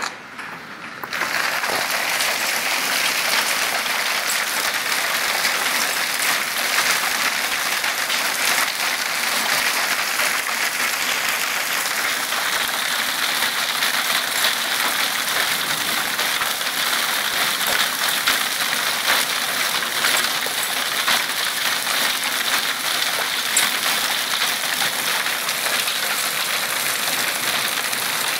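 Hailstorm: a dense, steady clatter of small hailstones pelting a wooden deck and patio furniture, starting abruptly about a second in.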